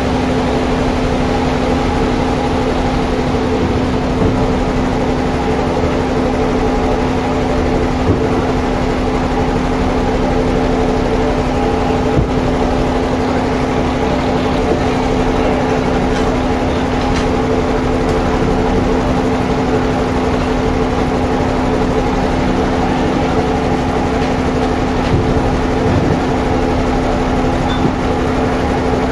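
Sawmill machinery running steadily: a constant drone of even pitch that does not rise or fall, with a few faint knocks.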